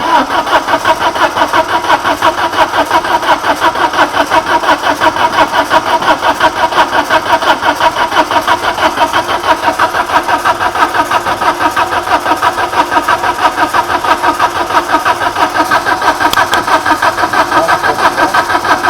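Freshly rebuilt Peugeot XU9J4 16-valve four-cylinder engine being cranked by its starter motor without firing, an even, steady churning pulse of about six beats a second. It won't catch because the fuel pump isn't connected.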